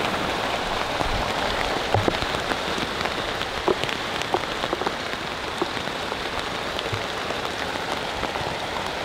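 Steady rain, an even hiss with scattered drops ticking now and then.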